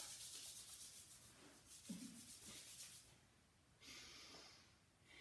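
Palms rubbed briskly together, a quiet, fast, even swishing that stops about three seconds in. A soft breathy hiss follows about a second later.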